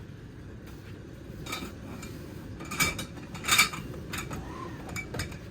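Metal support poles clinking and knocking against each other as they are handled, a few separate sharp clinks with the loudest about three and a half seconds in, over a steady low rumble.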